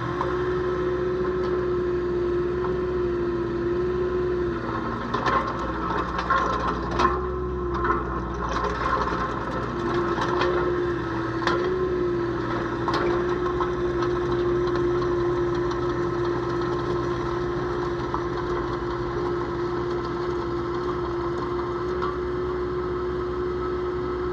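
Volvo EC18D mini excavator running steadily, with a steady whine that wavers briefly a few times. A series of sharp knocks and clanks comes in the first half.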